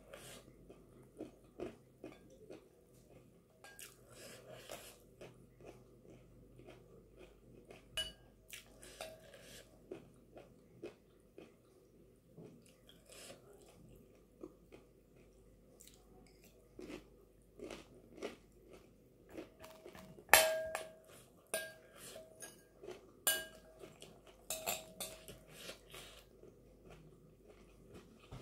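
A metal spoon clinks and scrapes against a glass bowl, alternating with close-up chewing and crunching of chana chatpate, a spiced chickpea snack. The sharpest, ringing clinks come about two-thirds of the way through.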